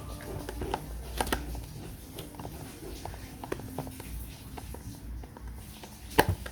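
Screwdriver turning and lifting out small screws from a desk lamp housing: scattered light clicks and taps of metal on the part, with a couple of sharper knocks.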